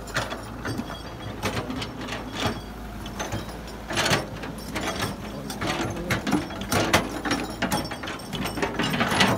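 Caterpillar crawler excavator digging: its diesel engine runs steadily under irregular metal clanks and knocks from the bucket and arm, with a louder cluster of knocks about four seconds in.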